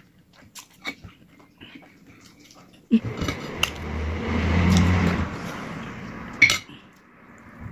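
Small mouth clicks of chewing, then from about three seconds in a metal spoon scraping and rubbing across a china plate for about three and a half seconds, starting and ending with a sharp clink.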